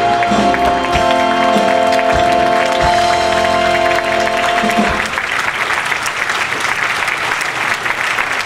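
Music with long held notes and low drum beats that stops about five seconds in, giving way to audience applause.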